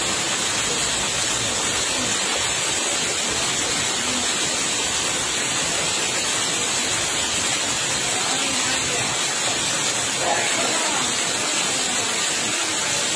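Steady rush of fast-flowing muddy water, an even hiss-like noise that keeps the same level throughout.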